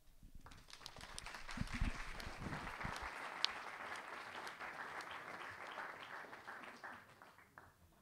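Audience applauding at the end of a talk. The clapping builds over the first second or two, holds steady, and dies away shortly before the end.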